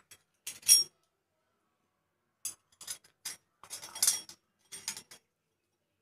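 Stainless steel murukku press parts clinking against each other as the small-hole disc and cylinder are handled: one loud clink just under a second in, then a string of lighter clinks and taps.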